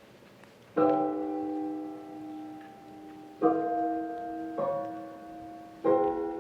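Piano chords in a slow classical piece. After a near-silent first second, four chords are struck at uneven intervals, each left ringing and fading.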